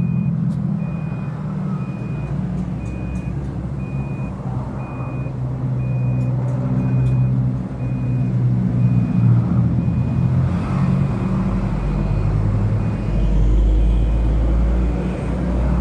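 A steady, loud low motor rumble with a short high-pitched beep repeating evenly, a little under twice a second, like a vehicle's reversing alarm.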